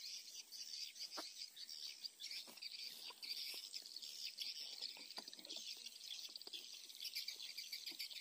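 Dense, steady high-pitched chirping of insects and birds in a grassy rural setting, with a few brief clicks scattered through it.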